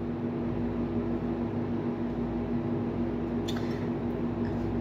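Steady mechanical hum of an appliance running in the room, holding several constant tones. One soft click about three and a half seconds in.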